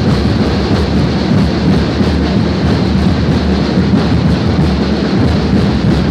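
Loud, steady din of a large street-procession crowd: a dense rumbling noise with no words standing out.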